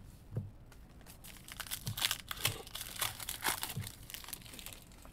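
Foil wrapper of a Panini Illusions football card pack being torn open and crinkled by hand. The crackling rustles thicken about a second and a half in and die away near the end.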